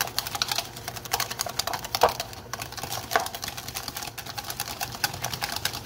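Wire whisk beating a thick flour-and-oil roux with hot stock in a mixing bowl: fast, irregular clicking and tapping of the wires against the bowl, with a couple of louder knocks about two and three seconds in. The stock is being whisked in gradually so the roux does not clump.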